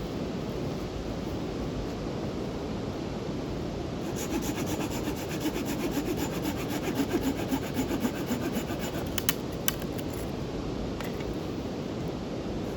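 Hand saw cutting through wood in quick, rhythmic back-and-forth strokes, typical of cutting firewood. The strokes begin about four seconds in over a steady rushing background, then ease off near the end.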